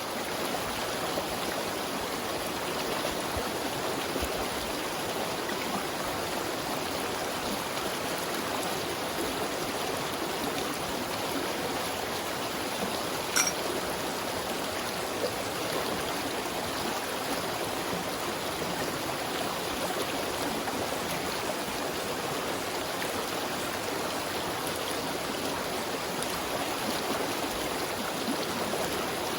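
River water rushing steadily over rocks. A single sharp click about halfway through.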